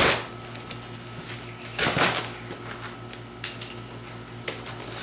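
A cardboard box being opened and packing paper rustled by hand, with loud rustling swishes at the start and again about two seconds in, and a few sharp clicks and taps in between.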